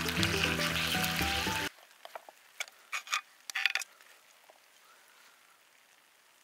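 Background music over frying sizzle, both cutting off abruptly about a second and a half in. Then a cluster of sharp clicks and scrapes, most of them between about two and four seconds in, as a knife and fork cut chicken in a cast-iron skillet.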